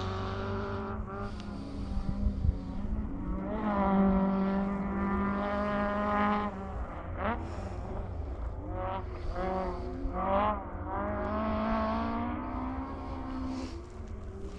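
Rally car engine revving hard, its pitch rising and dropping several times as it changes gear through the stage.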